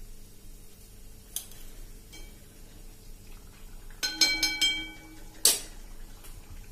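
Steel slotted spoon clinking against a wire-mesh frying strainer and the rim of a frying pan as samosas are scooped out of hot oil. There is one light click, then a quick run of ringing metallic clinks about four seconds in and a sharper clatter a second later.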